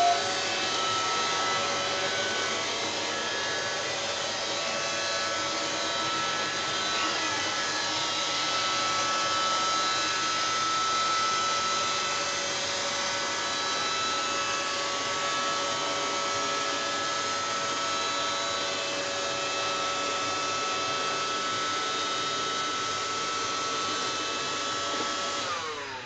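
Several iRobot Roomba robot vacuums running on carpet: a steady whirr of vacuum motors and brushes with several thin whining tones. Just before the end the motor pitch falls and the sound drops away as the robots stop at their docks.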